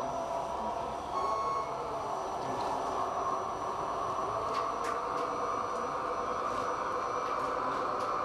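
Radio-controlled model trucks running with a steady mechanical drive noise, with one short electronic beep about a second in and a few light clicks later.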